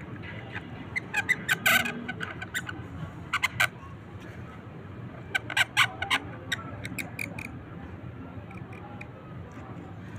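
Bamboo reed pen (qalam) scratching and squeaking on paper in short, quick bursts as ink strokes are drawn, coming in a few clusters with pauses between.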